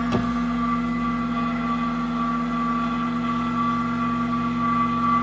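AFES Vac100 vacuum sealer's pump running with a steady mechanical hum, pulling a vacuum on a lidded food canister. A brief click sounds just after the start.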